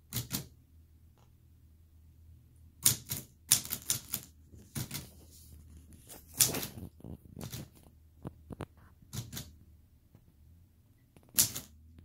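Old manual portable typewriter typed slowly, one finger at a time: irregular sharp keystrokes as the typebars strike, some single and some in quick runs of two or three, with pauses between.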